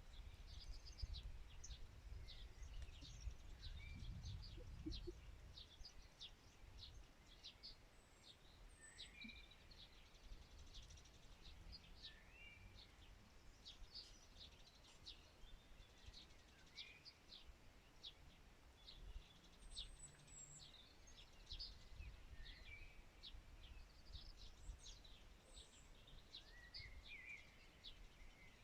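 Faint birdsong: many quick high chirps and a few short sliding whistled notes from several birds. A low rumble runs under it for the first few seconds.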